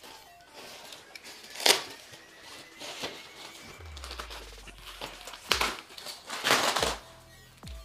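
Plastic packing wrap crinkling and rustling in irregular bursts as it is handled and pulled off a bike frame, with a sharp crinkle about two seconds in and a cluster of louder bursts near the end.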